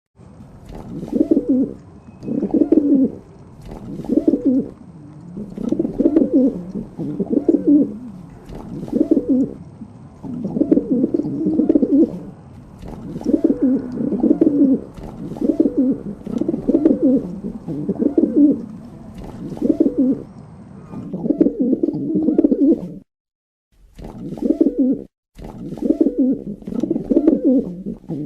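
Pigeons cooing: low, rolling coos repeated over and over, about one every second or so. The sound cuts out abruptly for a moment twice near the end.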